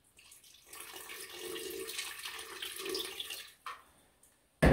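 Water poured from a glass jug into a tall graduated cylinder packed with ice, topping it up: a soft, steady pour that stops about three and a half seconds in. A sharp knock right at the end.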